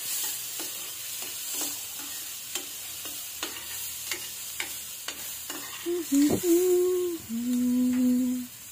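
Garlic, onion and tomato sautéing in a stainless steel pan over a gas flame: a steady frying sizzle, with a metal spoon scraping and tapping the pan about twice a second. Near the end come two short held low tones, louder than the frying.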